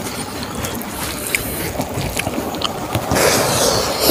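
Close-miked eating sounds: a mouth chewing smoked pork and rice, with many small wet clicks and smacks, and a hand working the food on banana leaves. About three seconds in there is a louder rustling stretch as a handful of rice is lifted to the mouth.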